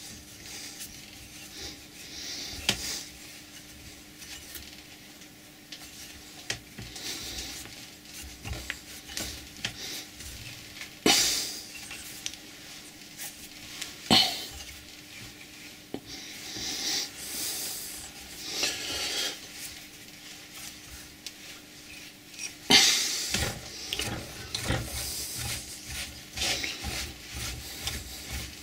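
Metal hand-tool work at a bench vise: a T-handle wrench turning a steel rod through a copper disc, giving bursts of metal-on-metal scraping and rubbing with a few sharp clinks. A faint steady hum runs underneath.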